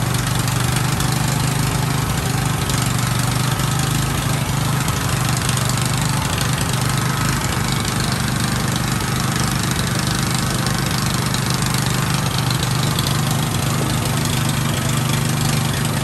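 Engine running at a steady speed: a constant low drone with an even hiss over it, unchanging throughout.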